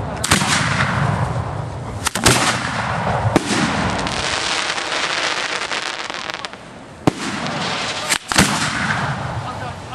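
Fireworks going off at close range: sharp reports, some in quick pairs about 2 and 8 seconds in, over continuous crackling. The crackling dies down briefly just before 7 seconds in.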